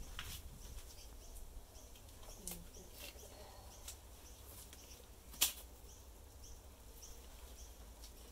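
A disposable glove being pulled off a hand, with one sharp snap about halfway through and scattered light clicks around it. Faint high chirps repeat in the background.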